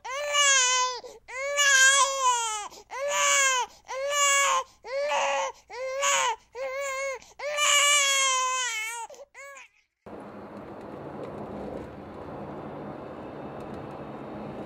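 Infant crying: a run of about eight short wails, each under a second, breaking off abruptly about ten seconds in. Steady road noise inside a moving car follows.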